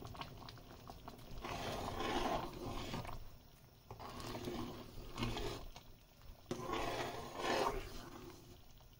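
Metal spoon stirring thick cooked dal in a steel pot: three bouts of wet stirring, each about a second and a half, with short pauses between.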